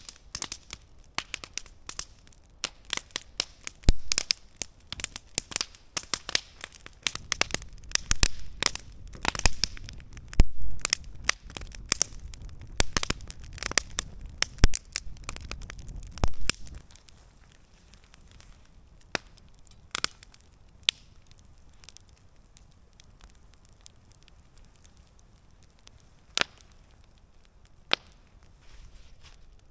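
Freshly lit campfire of split firewood crackling and popping, with dense sharp pops and a low rumble under them while the kindling flares. About halfway through it thins to an occasional single pop.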